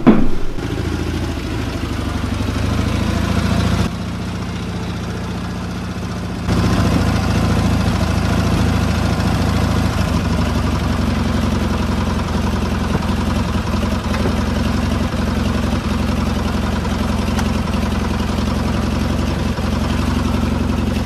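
Military sidecar motorcycle engine idling steadily. It is muffled for the first few seconds, then louder and closer from about six seconds in.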